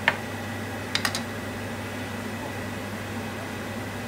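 Steady electrical hum with a faint high tone, with a sharp click just after the start and two or three quick clicks about a second in as a plastic stirring spoon knocks against a nonstick frying pan.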